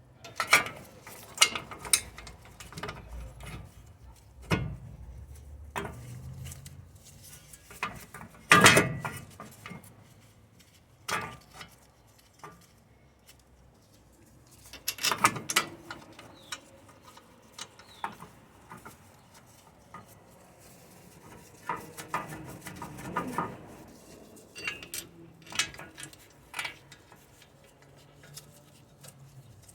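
Intermittent metal clinks and clanks of hand tools and steel parts being handled while a rear wheel hub bearing assembly is fitted, with a few sharper knocks.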